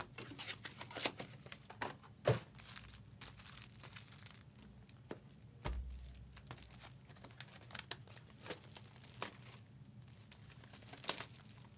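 Trading-card pack wrappers crinkling and tearing as packs are opened, with scattered sharp crackles and snaps.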